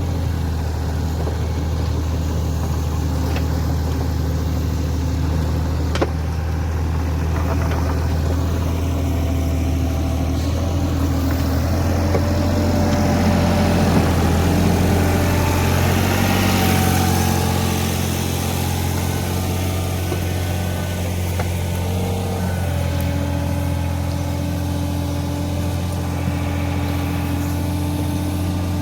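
Caterpillar 303 mini excavator's diesel engine running steadily while the machine works. It gets louder for a few seconds around the middle, then settles back, with a single sharp click early on.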